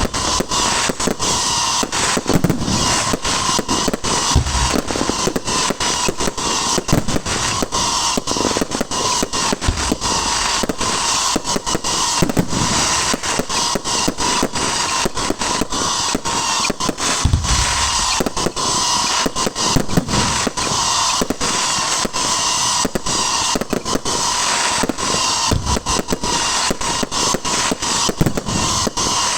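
Fireworks crackling densely and without a break, a fast rattle of small pops, with a few deeper booms now and then.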